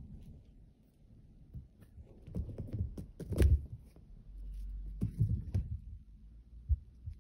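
Soft, irregular thuds and scuffling on a fabric sofa cushion as two kittens pounce and wrestle over a string toy. There are two flurries of bumps, the loudest about three and a half seconds in, and a single sharp knock near the end.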